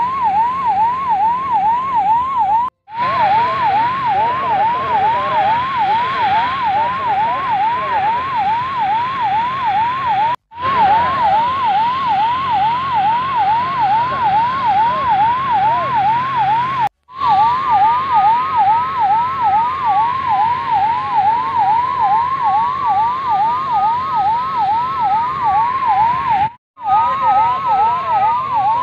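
Fire engine sirens. One runs a fast yelp, its pitch rocking up and down about three times a second. Past the middle a second siren joins it with a slow rising and falling wail. A steady hiss and a low hum sit underneath, and the sound cuts out briefly three times.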